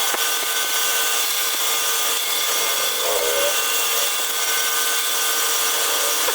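Power tool motor running steadily, with a constant whine of several fixed tones over a steady noise.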